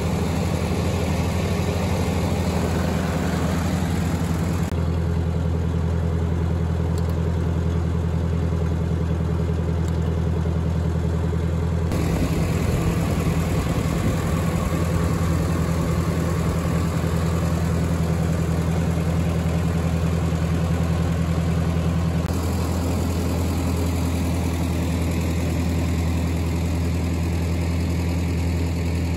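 1957 Ford 641 Workmaster tractor's four-cylinder engine idling steadily.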